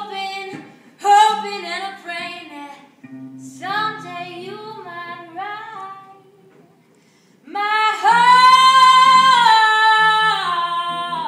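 A woman singing live, accompanying herself on acoustic guitar. She sings several short phrases, pauses briefly, then holds one long note near the end.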